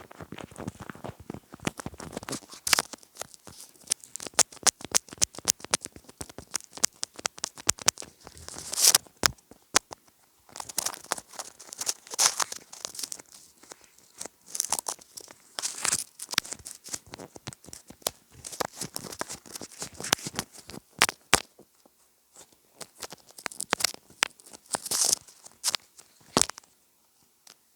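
Crinkling and crackling ASMR trigger sounds made on a homemade ASMR gadget: rapid sharp clicks and scratchy rustles in irregular bursts, with a few short pauses.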